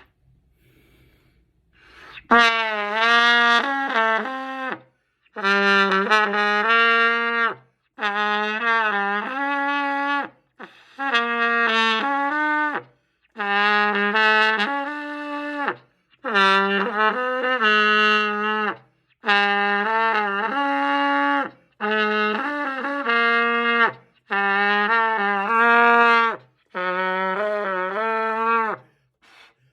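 Trumpet blown by a first-time player: about ten long, wavering notes, each two to three seconds with a short breath between. The notes start about two seconds in and stay mostly on two low neighbouring pitches, often sliding into pitch at the start.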